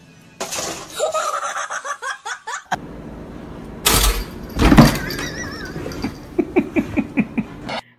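People laughing, ending in a run of quick bursts of laughter. A loud sudden clatter or crash comes about four to five seconds in.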